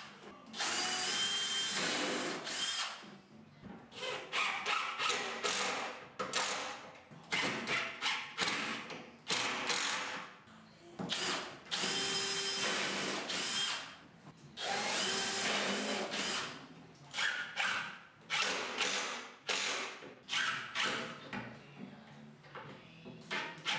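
Small cordless drill-driver running into the side panels of a melamine cabinet carcass, in many short start-stop bursts. The motor whine rises in pitch as each burst starts.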